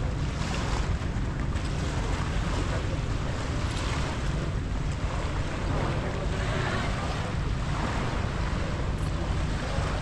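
Surf washing on a beach, swelling and easing, under wind buffeting the microphone.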